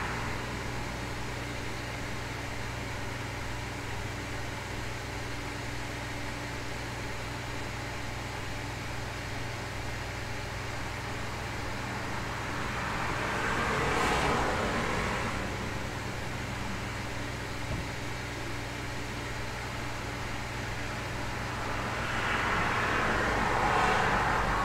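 Cars passing by outside, heard indoors over a steady low hum and hiss. One car swells and fades about halfway through, and another near the end.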